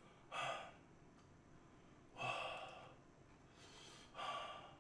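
A man breathing out hard three times, short breathy puffs about two seconds apart, the way one blows and breathes through burning lips after very spicy chicken feet.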